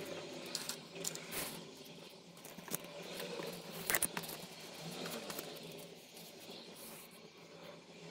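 Paper sticker sheets and photocards being handled and set down on a table: rustling with a few sharp taps and clicks, the loudest about four seconds in.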